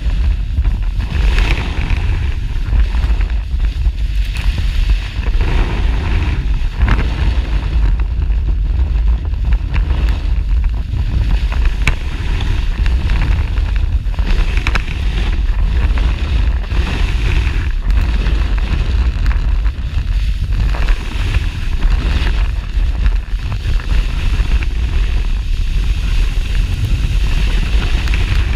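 Wind buffeting a snowboard-mounted action camera's microphone as a low, steady rumble, under the hiss and scrape of the board's edge on packed snow, which swells and fades every few seconds as the board carves from turn to turn.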